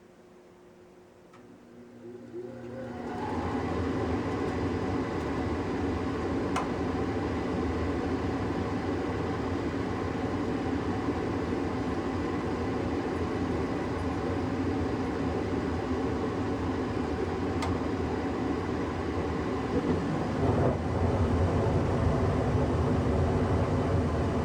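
Draft inducer motor of a 1994 Tempstar SP80 gas furnace starting up about two seconds in, rising in pitch as it spins up, then running with a steady hum: the first stage of the furnace's startup on a call for heat. Near the end the sound grows louder and deeper.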